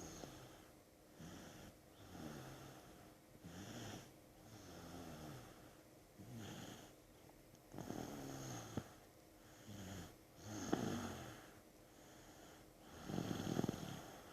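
A sick young child snoring in sleep: a steady run of noisy breaths about every second, several with a rattling snore, the loudest one near the end.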